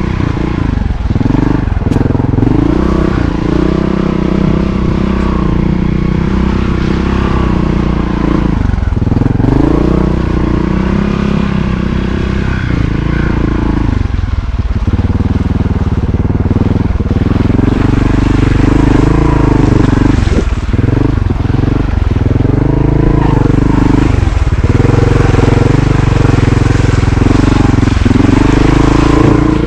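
Montesa COTA 4RT trials motorcycle's four-stroke single-cylinder engine being ridden, its revs rising and falling with the throttle, with short drops every few seconds as the throttle is rolled off.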